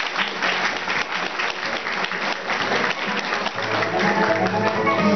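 Audience applauding, with instrumental music fading in about three and a half seconds in and growing louder.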